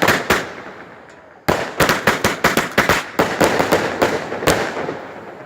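Firecrackers going off in sharp cracks: a few at the start, then after a pause of about a second a rapid, irregular string of bangs for about three seconds, ending with one last crack near the end.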